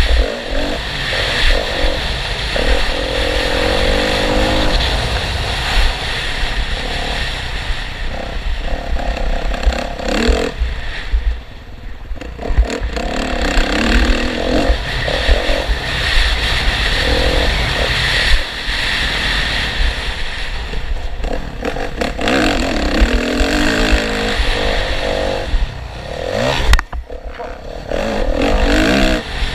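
Motocross dirt bikes running hard on the track, their engines revving and rising and falling in pitch again and again as they accelerate and pass.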